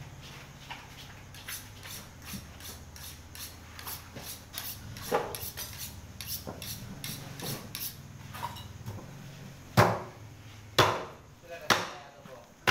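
Light clinks and taps of a butcher's knife and metal tools, then three loud knocks about a second apart near the end.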